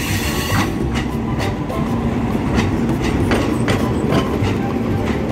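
A diesel-hauled passenger train passes close at speed: the locomotive goes by and then the coaches rumble past, their wheels clacking over the rail joints every half second or so.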